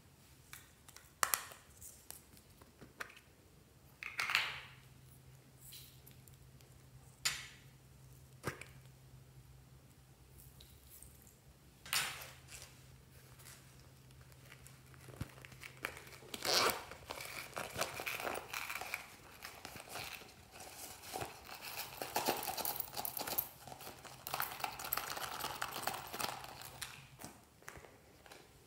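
Hands handling a glossy vinyl M&M-character zippered pouch. There are a few scattered sharp taps and clicks first, then, from about halfway through, some ten seconds of continuous crinkling and rustling.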